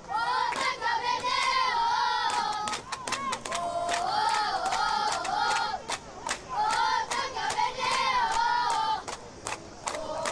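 Crowd of spectators chanting a sung cheer in unison, phrase after phrase with short breaks, with sharp hand claps all through.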